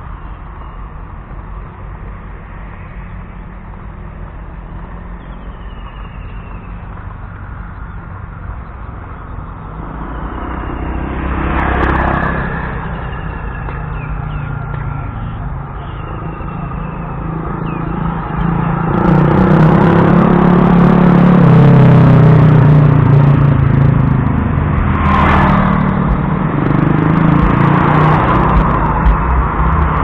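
Road traffic passing close by: a vehicle goes past about twelve seconds in, then a louder, low engine sound builds from about nineteen seconds on, with another vehicle passing around twenty-five seconds. A few faint chirps are heard in the first half.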